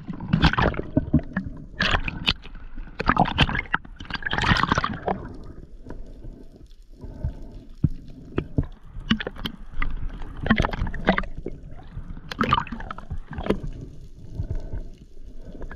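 Water sloshing and gurgling around the microphone, broken by irregular clicks and knocks.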